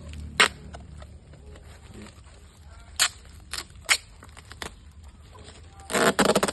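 Sharp snaps and crackles from packing being handled: a woven plastic sack wrapped around a peacock and the reinforcement being fastened on it, with a few separate snaps and then a dense burst of crackling near the end.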